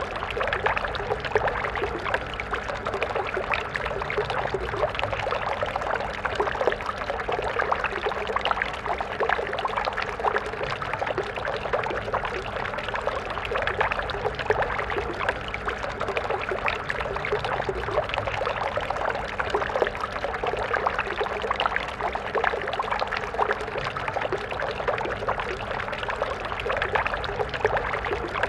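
A water stream flowing and splashing, a steady churning trickle of water over stones.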